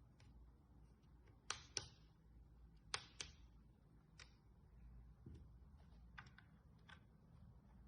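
Sharp clicks in a quiet room: two quick pairs of clicks about a second apart, then a few lighter ticks, over a faint low hum.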